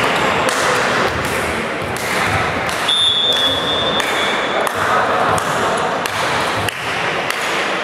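Volleyball ball hits and voices echoing in a sports hall, with a single steady referee's whistle blast about three seconds in, lasting a second and a half.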